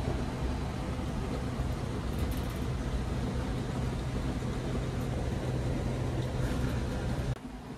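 Coach bus on the move: engine running steadily under road noise, with a low hum. Near the end the sound drops suddenly to a quieter hum.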